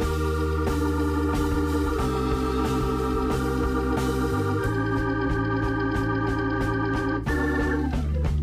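Background music of held, organ-like keyboard chords over a steady bass line, the chord changing about every two to three seconds.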